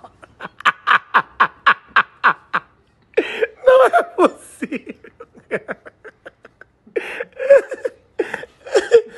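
A person laughing hard: a fast run of short, breathy ha-ha pulses, each falling in pitch, for the first two or three seconds, then more fits of laughter after short pauses.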